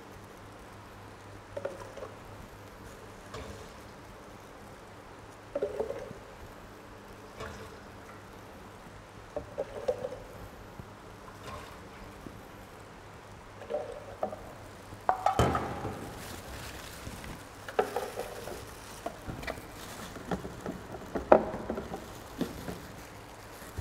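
Water poured cupful by cupful into a blender jar of soaked soybeans, a short pour every couple of seconds, over a low steady hum. Near the end comes a sharp click as the blender lid is fitted.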